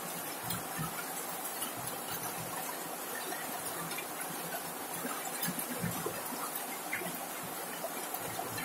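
Heavy rain falling on a corrugated zinc roof: a steady rain hiss with scattered ticks of drops and irregular dull low thuds.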